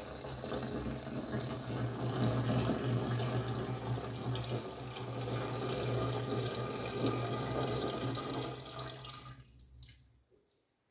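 Hot hop infusion poured from a glass French press into a plastic fermenting canister onto sugar: a steady splashing pour that tapers off and stops about nine and a half seconds in.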